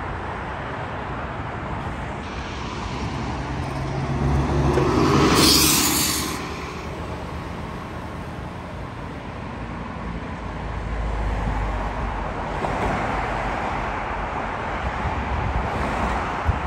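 A city transit bus approaching and driving past at close range: its engine and tyre noise swell to a peak with a brief hiss about five seconds in, then fade as it pulls away. Other cars rumble past later on.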